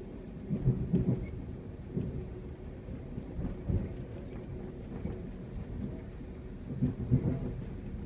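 Low rumble inside a moving Amtrak Superliner passenger car, with a faint steady hum and a few heavier low thumps and jolts: a cluster about half a second to a second in, one near four seconds, and another about seven seconds in.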